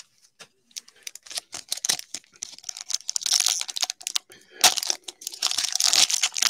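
Plastic crinkling and rustling as trading cards, their pack wrapper and plastic sleeves are handled: scattered small crackles and clicks at first, then a denser, louder run of crinkling in the second half.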